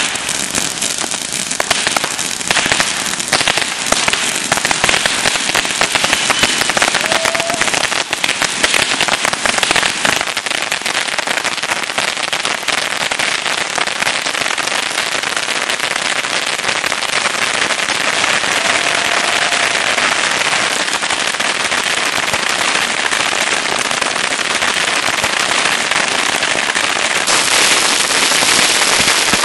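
Hundreds of bottle rockets firing off in rapid succession from a homemade gate launcher. They make one dense, unbroken crackling hiss of overlapping launches and pops, with a faint brief whistle now and then.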